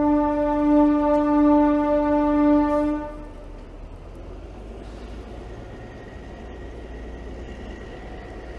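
Narrow-gauge diesel locomotive horn sounding one long, steady blast of about three seconds. After it cuts off, the low rumble of the train running carries on.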